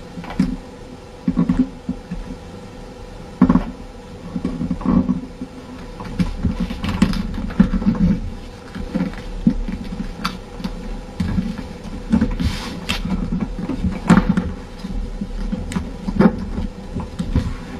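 A sheet of paper being folded and creased by hand for a paper airplane: irregular rustling and crinkling, with several sharp crackles as the folds are pressed flat.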